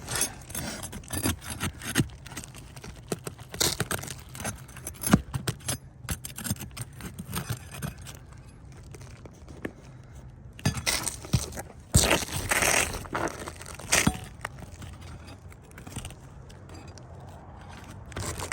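Asphalt ridge cap shingles being pried and scraped loose from the shingles beneath, in an irregular run of scrapes, clicks and crackles, with a longer harsh scrape about twelve seconds in. The cap is stuck hard to the shingles below, which makes it difficult to separate.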